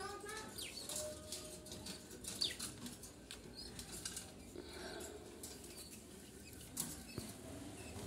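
Light clicks and rustling as a terracotta clay nest pot is handled against the wire mesh of a budgerigar cage, with a few faint budgerigar chirps near the start.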